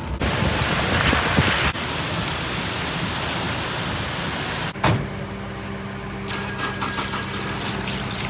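Heavy rain and road noise from inside a moving car, with a loud hissing rush for the first second or two. Then a steady rush of falling water. After a sharp click about five seconds in, a steady low hum takes over.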